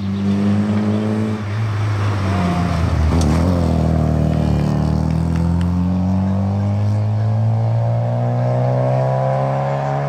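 Classic rally car engine running hard on a stage. Its pitch falls over the first few seconds as the car slows, then climbs steadily as the car accelerates.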